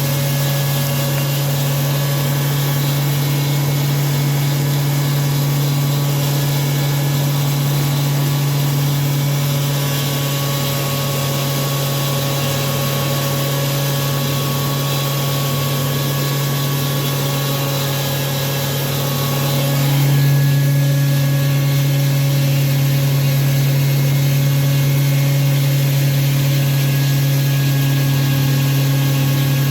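Disk mill running steadily with a strong low hum while grinding coarse rice bran through a 1.5 mm screen, with a suction system drawing off the ground bran. About two-thirds of the way in the machine gets slightly louder and fuller in tone.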